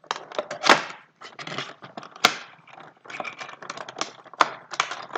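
Cardboard box and plastic insert of a Pop vinyl figure being opened by hand: a run of small clicks, crinkles and scrapes, with a few sharp snaps about a second in, near the middle and near the end.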